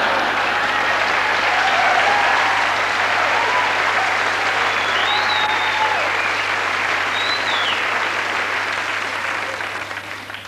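Large audience applauding steadily, dying down near the end.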